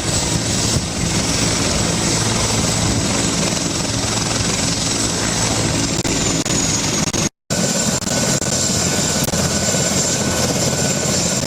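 Helicopter running close by: a steady rotor and engine din with a thin, high turbine whine above it. The whine sags slightly in pitch about six seconds in. The sound breaks off for a split second about seven seconds in, then carries on much the same.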